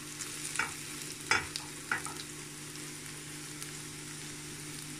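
Sliced onions sizzling in oil in a stainless steel frying pan, with a few sharp scrapes of a spatula against the pan in the first two seconds, then a steady sizzle.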